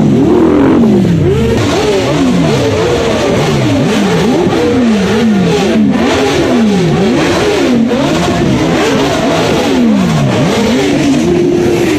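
A vehicle engine being revved over and over. Its pitch rises and falls in quick repeated blips, a little more than once a second.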